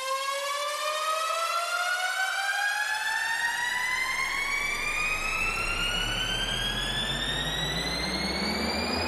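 Electronic rising tone with overtones, climbing steadily and slowly in pitch, like a siren that never comes back down. About three seconds in, a swelling hiss and a deep bass rumble join it and build toward the end: a synthesized riser in a bass-boosted speaker test track.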